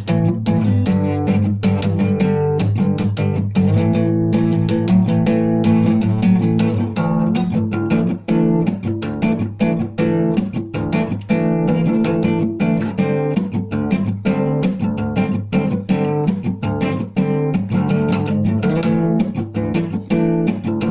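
Guitar music: plucked and strummed acoustic guitar playing steadily, with a bass line underneath.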